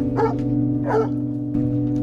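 A hunting dog barks twice, near the start and about a second in, over slow sustained background music.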